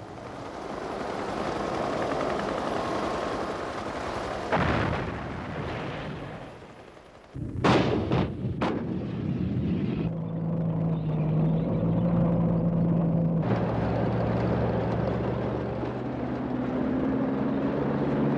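Battle sounds in edited military footage: a rumbling din with one sharp bang about four seconds in, then a quick cluster of loud bangs. About ten seconds in this gives way to a steady engine drone, which shifts to a lower hum a few seconds later.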